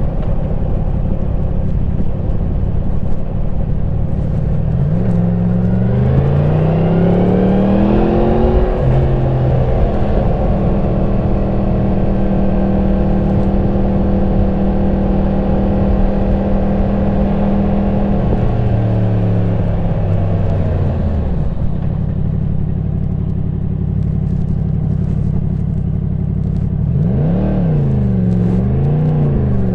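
2022 Yamaha MT-10 SP's crossplane inline-four engine, stock exhaust, under way. The engine pitch climbs as it accelerates about five seconds in, holds steady at a cruise, falls away as it slows around eighteen seconds, then rises and falls twice near the end.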